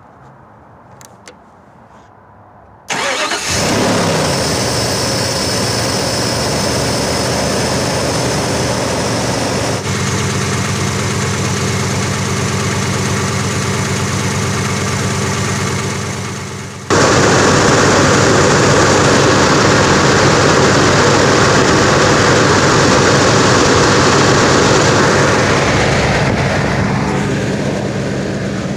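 A few faint clicks, then about three seconds in the 1996 Jeep Grand Cherokee's 5.2L V8 starts and settles into a steady idle, heard close up at the front of the engine. Past the middle the sound cuts abruptly to a louder recording of the engine running, which fades out near the end.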